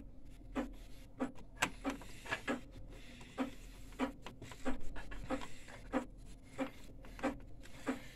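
A screw being driven into a printer's sheet-metal chassis with a hand screwdriver: a string of short, faint clicks and creaks, about two to three a second.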